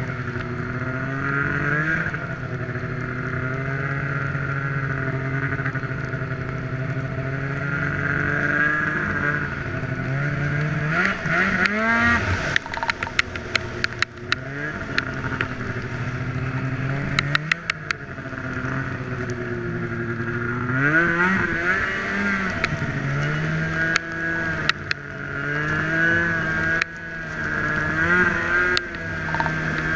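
Snowmobile engine running under way, its pitch dropping and climbing again several times with the throttle. Bursts of sharp clicks and knocks come about a third of the way in and again later.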